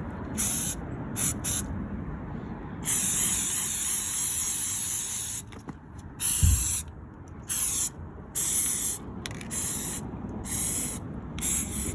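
Aerosol can of Flex Seal rubberized sealant spraying in bursts: a few short squirts, one long spray of about two and a half seconds, then a run of shorter sprays. A steady low rumble runs underneath, with a brief low thump about six and a half seconds in.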